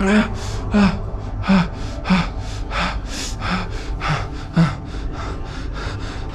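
A man panting hard and fast close to the microphone: quick gasping breaths about three a second, some with a short low voiced catch.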